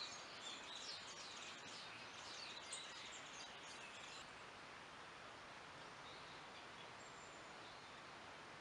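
Forest ambience: small birds chirping busily over a steady hiss. The chirping stops abruptly about four seconds in, leaving the faint hiss with a few scattered calls.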